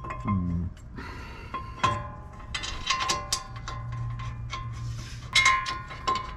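Metal tools clinking and tapping against metal parts, many sharp clicks, some leaving a short bell-like ring.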